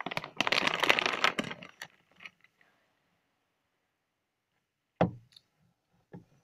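Plastic candy wrapper crinkling and crackling close to the microphone for about two seconds, then two soft thumps near the end.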